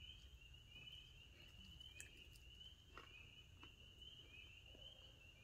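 Near silence with a faint, high, repeated chirping, about two to three chirps a second, from night insects. A few faint clicks come from hands working the chicken wing.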